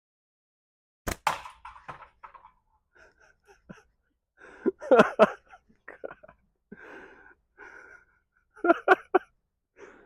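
A slingshot shot of 12 mm steel ball at a tin can: two sharp cracks close together about a second in. Short breathy vocal sounds follow twice later on.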